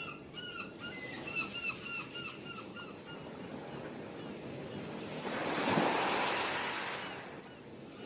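Gulls calling, a quick run of short, repeated cries over steady surf during the first few seconds. Then a wave breaks and washes in, swelling about five seconds in and fading away near the end.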